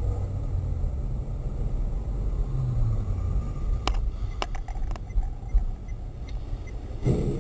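Low, steady rumble of a car driving, heard from inside the cabin through a dashcam, with a few sharp clicks about halfway through.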